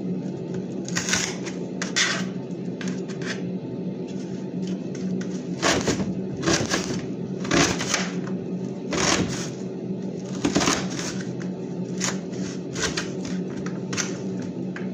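Kitchen knife slicing a red onion against a metal pan: a series of short irregular cuts, the strongest in the middle stretch, over a steady low hum.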